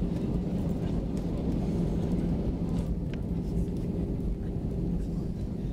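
Airbus A320 heard from inside the passenger cabin: a steady engine hum over a low, even rumble.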